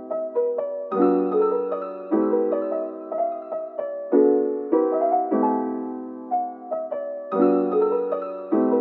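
Background piano music: a soft, slow piano piece with chords struck every second or so and left to ring.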